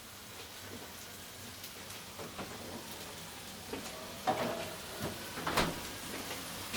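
Butter sizzling quietly in a hot frying pan, with a couple of light knocks in the second half.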